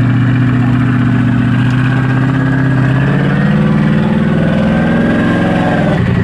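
Modified Jeep Wrangler JK's engine running, its revs climbing from about halfway through.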